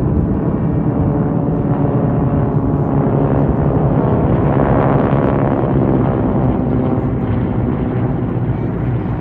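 A formation of North American T-6 Texans, their Pratt & Whitney R-1340 radial engines and propellers running, passes overhead. The sound swells to its loudest about halfway through, then its pitch falls as the planes go by.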